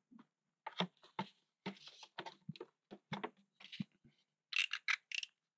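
Light rustling and irregular clicks of double-sided carpet tape and plastic being handled, with a few brief, sharp crackles, like tape pulled from its roll or backing, about four and a half seconds in.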